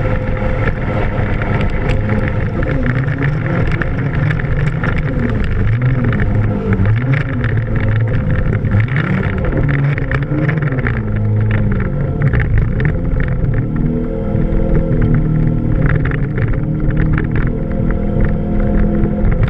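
Naturally aspirated Mazda 13B Renesis rotary engine of a mini jet boat running under way, its pitch rising and falling with the throttle through the first half, then holding steadier.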